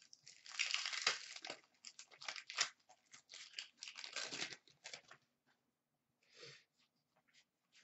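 Wrapper of a 2015-16 Upper Deck Champs hockey card pack being torn open and crinkled in the hands, a run of rustling lasting about five seconds, with one short rustle near the end.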